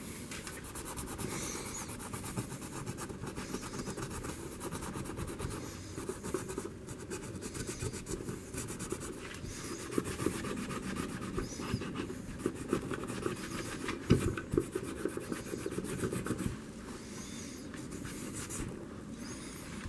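Abrasive pad scrubbing surface rust off the steel of a small H&R revolver: a continuous rapid rasping rub, with a few sharper, louder scrapes in the middle stretch.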